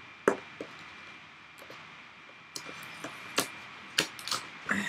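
Webcam's cardboard box and inner packaging being pried apart by hand: scattered sharp clicks and snaps of card and plastic, several of them, spread unevenly over a few seconds.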